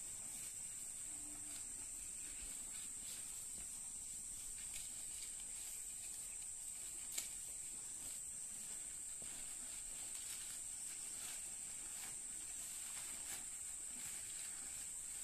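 Steady high-pitched drone of insects, with faint irregular crunching and tearing of cattle pulling at and chewing grass and corn leaves, and one sharper click about seven seconds in.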